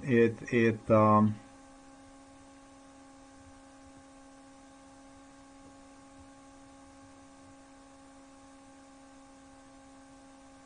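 A steady, faint electrical hum of a few level tones, running unchanged, after a man's voice is heard briefly in the first second or so.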